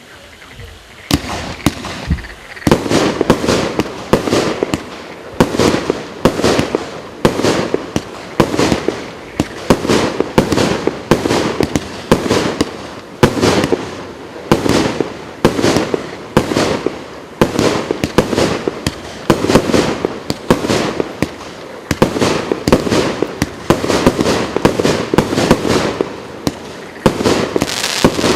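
Consumer fireworks cake (battery) firing shot after shot: sharp bangs about one to two a second with crackling between them, starting about a second in and keeping up without a break.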